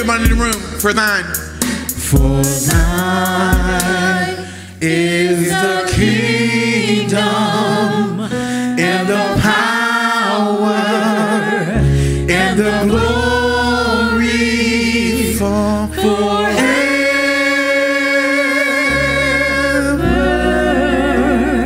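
Gospel worship song: several voices singing long, wavering held notes over sustained low bass accompaniment.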